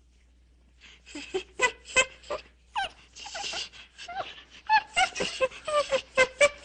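Baby monkey giving a rapid run of short, high-pitched calls, starting about a second in. Some calls slide up or down in pitch.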